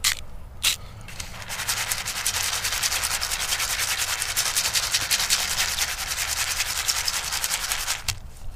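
Two quick shakes of salt over a pan of wet piñon nuts, then the metal pan is shaken and the unshelled nuts rattle and slide around in it for about seven seconds before stopping abruptly near the end.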